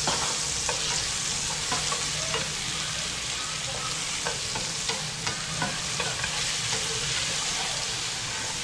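Tomato wedges sizzling in oil in a nonstick frying pan as they are lightly sautéed, stirred with wooden chopsticks that tap the pan now and then.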